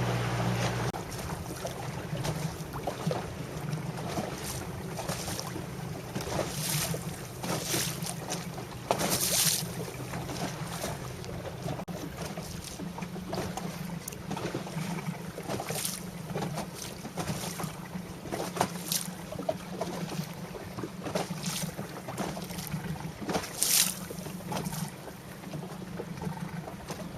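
Wind buffeting the microphone in repeated gusts over a low steady hum.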